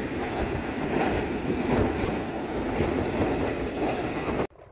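Steady rumble and rail noise of the moving Green Line Express passenger train, heard from inside the carriage. It cuts off suddenly near the end.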